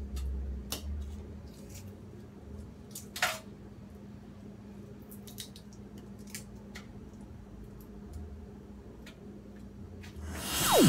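Small clicks and crackles of raw shrimp shells being pulled off by hand, over a steady low hum. Near the end a loud whoosh sweeps steeply downward in pitch.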